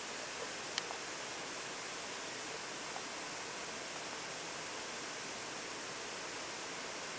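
Steady rush of a river flowing over stones, with a single light click about a second in.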